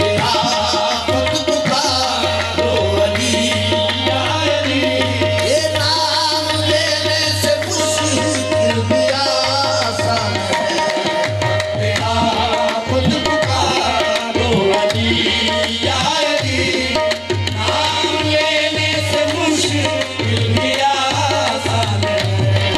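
Live qawwali music: tabla drumming over harmonium, with voices singing.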